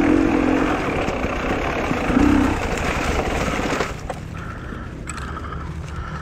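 Motorcycle engine running under way with rushing wind noise, the engine note briefly stronger near the start and again about two seconds in. About four seconds in, the engine and rush fall away to a quieter low drone.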